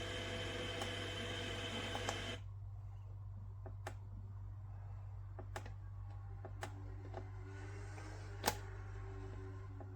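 A steady sound with several held tones, likely from the alarm clock's speaker, cuts off abruptly about two seconds in. A low steady hum and a scattered series of sharp clicks follow, like the clock's buttons being pressed.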